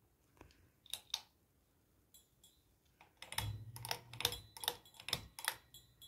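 Ceiling fan's metal pull chain and Harbor Breeze fob clicking and rattling: two clicks about a second in, then a quick run of about eight clicks from about three seconds in, with a low hum coming in along with them.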